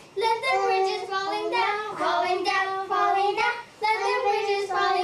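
Children singing a game song in short sung phrases, with a brief pause about three and a half seconds in.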